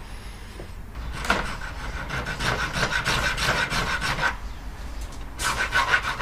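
Round file rasping back and forth across a red deer antler nock on a longbow tip, cutting the string groove. Quick repeated strokes start about a second in and run for about three seconds, stop, then start again near the end.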